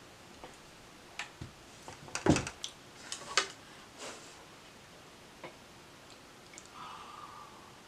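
Light clicks and taps of a makeup brush and eyeshadow palette being handled, scattered through the first few seconds, with the loudest a little over two seconds in.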